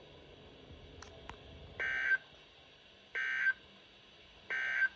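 Three short bursts of Emergency Alert System end-of-message data tones, the warbling two-tone code sent over NOAA Weather Radio, about a second and a third apart. They mark the end of the alert.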